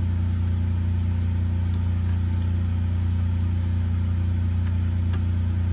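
A steady low hum from a running motor or engine, unchanging in pitch and level, with a few faint clicks on top.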